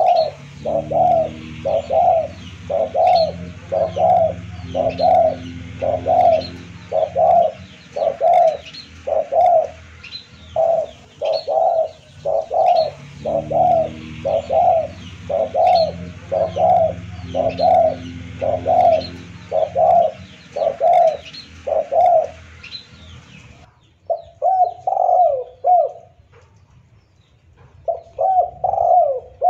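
Spotted dove (tekukur) cooing over and over, used as a lure call: a long, even series of coos about one a second. Behind the coos are a steady low hum and faint high chirping. Both stop about three-quarters of the way through, and the cooing then goes on in two short bursts.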